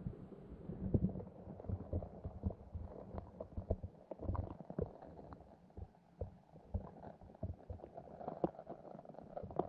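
Muffled underwater sound picked up by a GoPro in its waterproof housing: a low rumble of moving creek water with many small, irregular clicks and knocks.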